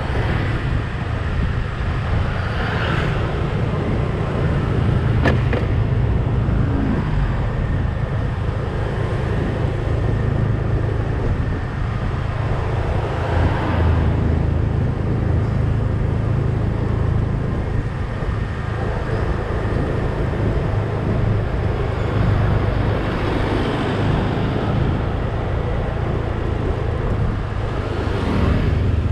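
Steady engine drone and road noise from a vehicle driving along a town street, with passing traffic swelling briefly a few times.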